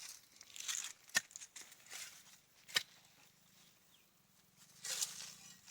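Digging tool chopping into soil and galangal roots: two sharp strikes, with scraping and rustling of earth and leaves between them.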